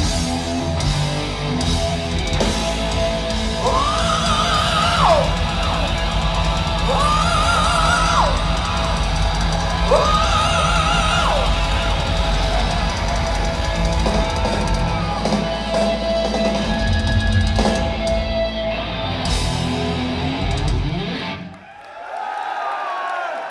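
Live heavy metal band playing the final bars of a song, with distorted guitars, drums and long held high notes, which stops abruptly near the end. The crowd then cheers and whistles.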